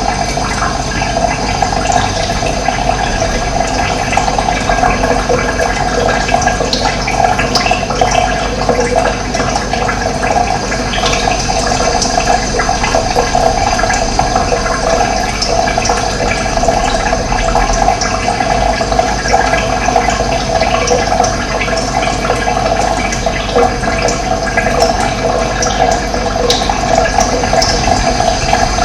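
Running water flowing steadily, a continuous loud rush.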